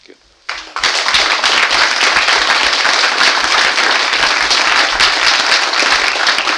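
Audience applauding, breaking out suddenly about half a second in and then holding steady and loud.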